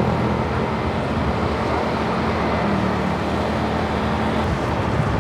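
Roadside traffic: a vehicle engine running steadily under a constant hiss, the hum fading out about four and a half seconds in.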